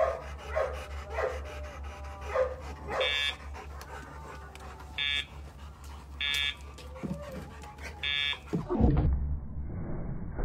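A dog letting out several short, high yelps in the first three seconds, then four short electronic beeps about a second and a half apart over a steady low hum, with a thump near the end.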